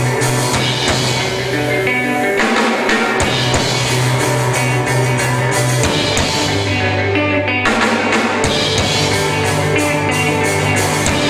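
Rock band playing an instrumental passage of a song: guitar over sustained bass notes and a drum kit with cymbals. The bass line moves to a lower note about six seconds in.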